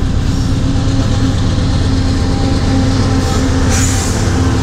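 Freight train passing close by: a loud, steady rumble with a steady engine hum, and a short hissing burst about four seconds in.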